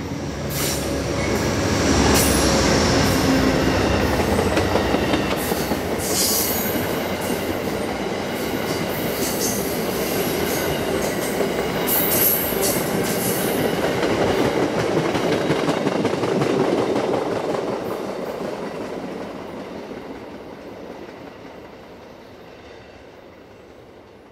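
Amtrak GE P42 diesel locomotive passing close by at speed, loudest about two seconds in. A long string of stainless-steel Amfleet passenger coaches follows, rolling past with steady wheel-on-rail noise and sharp high clatters now and then. The sound fades away over the last several seconds as the train recedes.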